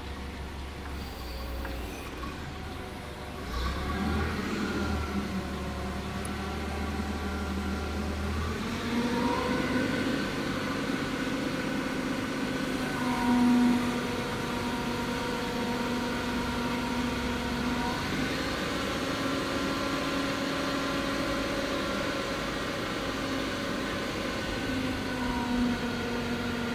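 LPG forklift engine running, stepping up to a higher steady speed about a third of the way in and holding it while the hydraulics raise the mast and the pallet handler attachment to full height.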